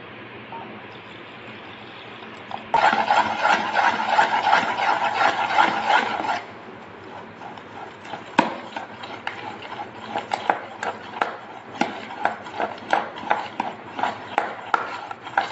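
Spoon beating thick gram-flour batter in a metal bowl, scraping and knocking against the bowl's side. A steady hiss for the first few seconds, then fast, dense scraping and clatter from about three seconds in to about six. After that it settles into separate clicks of the spoon strokes, about two to three a second.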